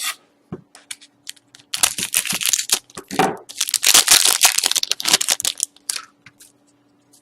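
A foil hockey-card pack being torn open and its wrapper crinkled, in two long crackling stretches, then a few light clicks as the cards are handled.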